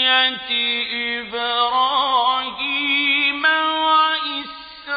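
Melodic Quran recitation (tajweed) by a single male reciter, holding long, ornamented notes as he draws out the words of the verse. The pitch steps up about three and a half seconds in.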